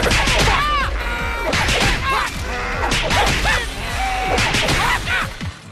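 Cartoon beating sound effects: a rapid string of whacks and cracks with whooshes over music, as a character's body is bent and cracked into pieces.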